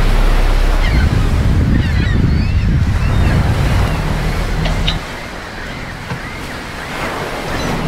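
Seashore surf with wind buffeting the microphone, and high chirping calls over it; the low wind rumble drops away sharply about five seconds in.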